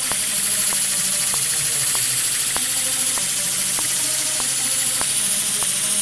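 Paper single-cylinder air engine with a large flywheel running on compressed air: a steady high hiss of escaping air, with a light click repeating roughly every half second.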